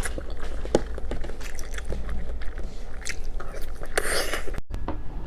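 Close-miked eating sounds: scattered small bites, wet clicks and chewing of soft food, with a louder squelchy burst about four seconds in, after which the sound drops out for an instant.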